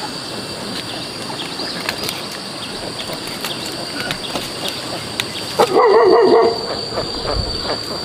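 Steady background hiss with a thin, high, steady tone and scattered light ticks, broken about six seconds in by one short, loud animal call lasting nearly a second.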